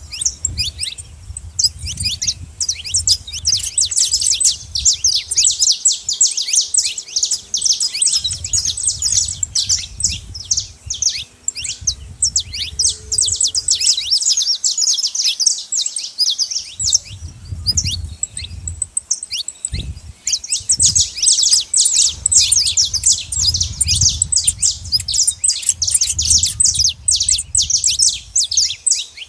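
Saffron finch chirping and singing in a dense, rapid stream of high, sharp notes, with a short lull about halfway through before it picks up again.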